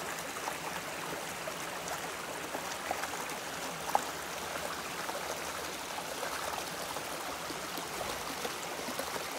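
A shallow stream trickling and babbling over pebbles and rocks, a steady rush of water with small splashes and ticks. A single brief, louder tick comes about four seconds in.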